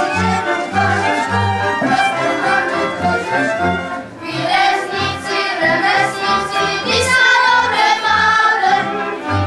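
Moravian folk dance song: a group of voices singing over instrumental accompaniment, with a steady pulsing bass beat.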